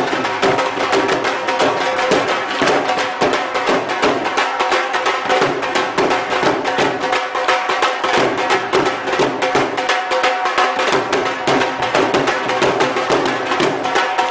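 Two dhols, Punjabi double-headed barrel drums, played together with sticks in a fast, driving rhythm of many strikes a second.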